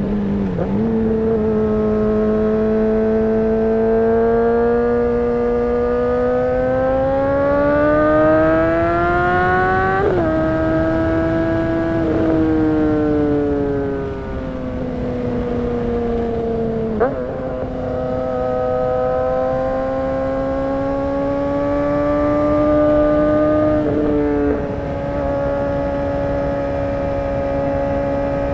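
2008 Honda CBR600RR's inline-four engine running under way: the revs climb steadily for several seconds, drop abruptly at gear changes about a third of the way in, fall off for a few seconds, then rise and hold at a fairly steady pitch through the rest.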